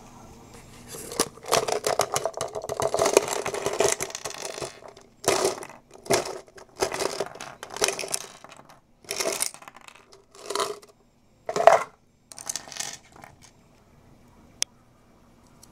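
Small plastic toy figures rattling and clattering as they are shaken and tipped out of a cup onto a wooden table: one long burst, then a string of shorter bursts. Near the end, a single sharp click.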